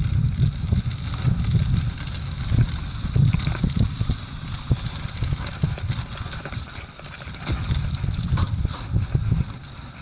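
Mountain bike descending a dry dirt trail: wind buffeting the on-bike microphone, tyres rolling over dirt and dry leaves, and a run of rattles and knocks from the bike over bumps.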